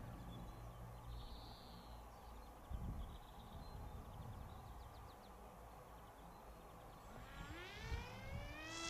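Motor of a radio-controlled model F-22 plane. Only low wind rumble is heard at first. About seven seconds in, the motor's whine rises steeply in pitch as the throttle opens, then holds steady.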